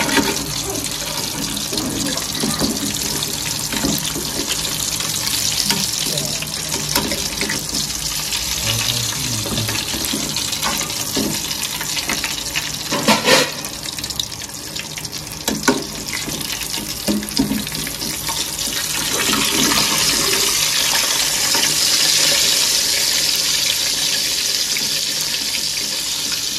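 Fish shallow-frying in hot oil in a steel kadai, a steady sizzle. A metal spatula scrapes and knocks against the pan a few times, loudest about 13 seconds in. The sizzle grows louder about 19 seconds in, with the fish turned over.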